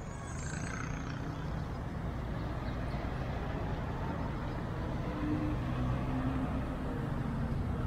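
Street traffic: cars driving past close by, engines and tyres on the road over a steady rumble of city traffic.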